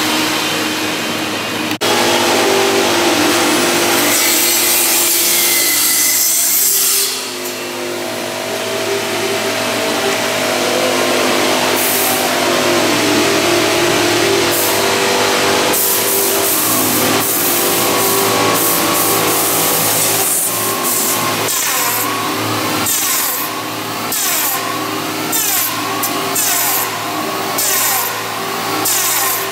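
A woodworking power tool running and working on timber, with a steady motor tone under a rasping cut. In the second half it goes in short repeated strokes, roughly one or two a second.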